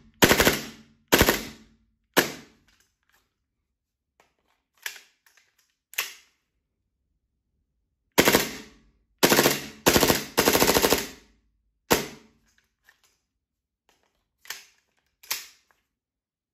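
WE Glock 35 gas blowback airsoft pistol being fired about a dozen times at an uneven pace: sharp cracks of the shots with the slide cycling, several in quick succession around the middle, and a few softer shots near the end.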